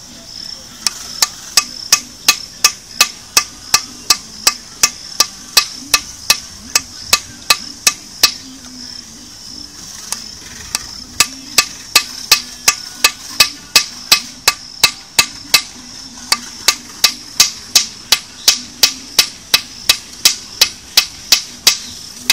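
Hammer tapping in a steady rhythm of sharp blows, about three a second, with a pause of two or three seconds about a third of the way through.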